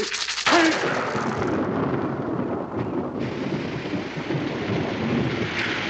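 A sudden thunderclap about half a second in, rolling on as rumbling thunder over a steady hiss of heavy rain: a storm breaking.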